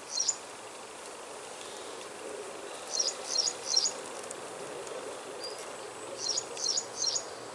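A small bird's short high chirps: one near the start, then twice a quick group of three. Under them runs the steady hum of honeybees from the open hive.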